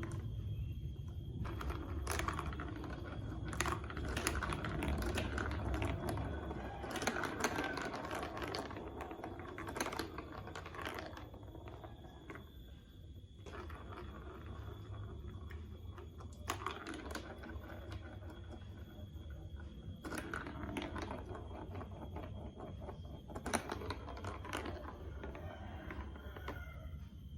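Plastic building blocks and marble-run pieces being handled, with irregular sharp clicks and clattering runs as parts are picked up, set down and snapped together.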